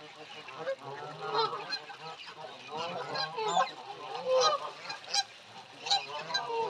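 A flock of Canada geese honking, many calls overlapping in quick succession.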